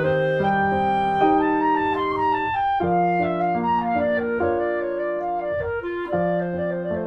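Instrumental music: several held, pitched notes sounding together and changing every half second or so, with a wavering note near the end.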